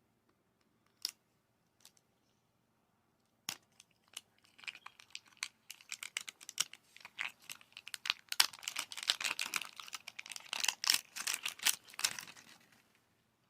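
Plastic blind-bag wrapping being torn open and crinkled by hand. It starts with a few separate clicks, then becomes a dense crackling and tearing for most of the rest, stopping shortly before the end.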